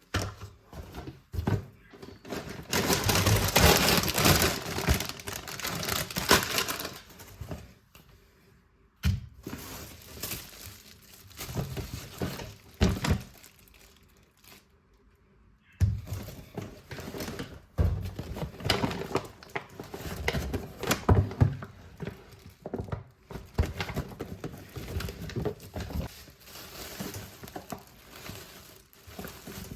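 Household handling noises: packaging crinkling and rustling, with knocks and thuds of things being set down, in several short segments that start and stop abruptly.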